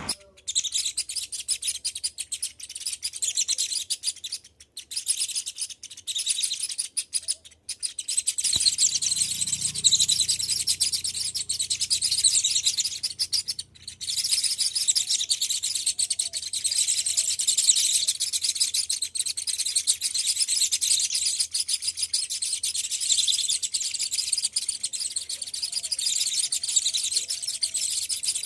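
A group of small birds chirping, a dense, continuous high-pitched chatter of many overlapping calls, with a few brief gaps.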